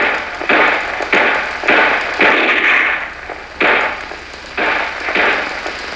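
Rifle shots fired in an uneven series, about eight in all, mostly about half a second apart with a longer pause near the middle, each with a short echoing tail.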